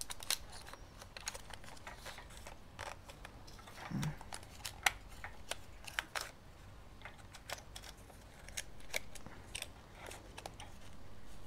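Scattered light clicks and plastic taps as a 35mm film cassette is seated in the open film chamber of an Olympus IZM300 compact camera and the film leader is pulled across to the take-up spool.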